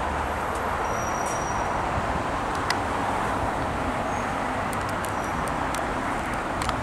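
Steady road traffic noise, a continuous hiss of passing vehicles, with a few faint clicks.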